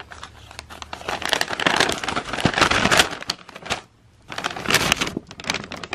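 Paper gift bag crinkling and rustling as hands open and rummage in it, full of small crackles, with a brief pause about four seconds in.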